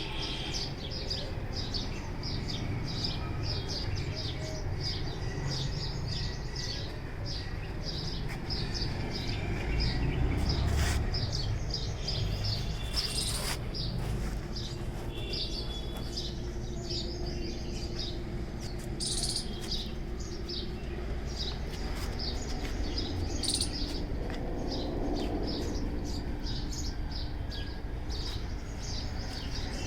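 Small birds chirping over and over, with a few sharper, higher calls standing out about 13 and 19 seconds in, over a low rumble.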